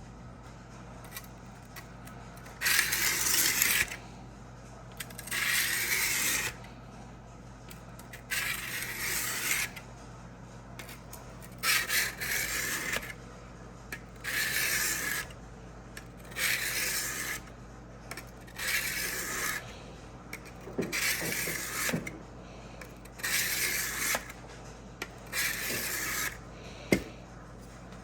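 Steel drawknife edge being stroked against a diamond sharpening plate: about ten separate gritty scraping strokes, each a second or so long, at an even pace, with a sharp click near the end. This is the edge being ground to raise a burr.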